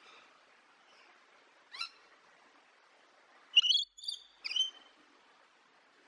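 Rainbow lorikeet calling: one brief screech about two seconds in, then three loud, shrill, harsh screeches in quick succession about a second later, over a faint steady hiss of forest ambience.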